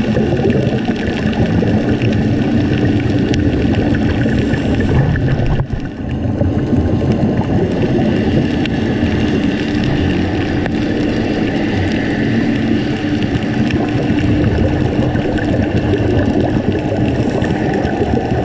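A steady motor drone with a low rumble, heard underwater, dipping briefly about six seconds in.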